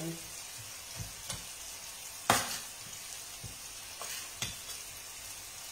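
Steady sizzle of chopped eggplant flesh frying in oil in a pan, with a few short sharp clicks from the hands working a ground-meat filling in a bowl; the loudest click comes about two seconds in.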